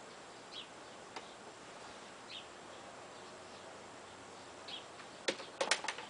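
Mostly quiet, with a few faint high chirps, then a quick run of sharp clicks and knocks near the end from the slide-action baggage door lock and door being worked by hand.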